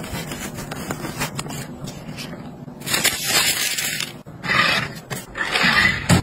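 Adhesive sheet being peeled off a lint roller: a low scratchy rustle, then crackling rips at about three seconds and twice more near the end.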